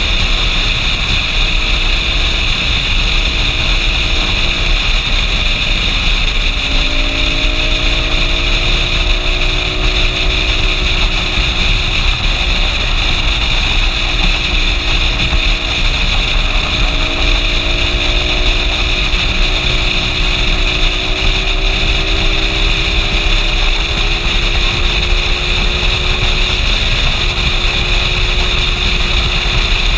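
Motorcycle engine running at a steady cruise, its pitch shifting slightly a few times, under a constant rush of wind and road noise on the bike-mounted microphone.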